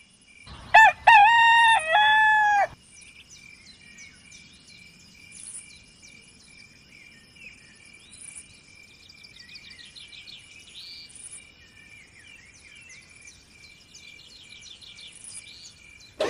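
A rooster crows once, starting about a second in and lasting about two seconds, followed by faint birds chirping.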